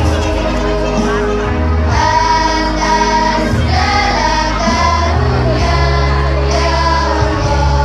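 A choir singing a madrasah hymn in held, sustained notes over an accompaniment of steady low bass notes that change about every second.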